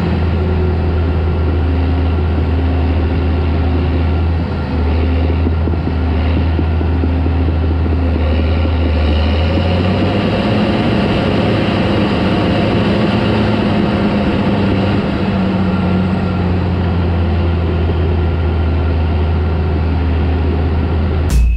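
Caterpillar D4 crawler tractor's diesel engine running steadily under load, a deep engine hum with track and machinery noise. The engine note rises slightly about nine seconds in.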